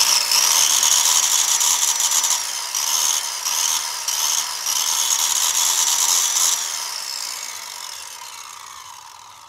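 Sears Craftsman 2 1/8 horsepower circular saw with a 7 1/4 inch blade, mounted as a chop saw, running free with a high whine and cutting nothing; about six and a half seconds in the trigger is let go and the saw spins down, fading away. The owner says it vibrates like hell and needs its bearings re-greased.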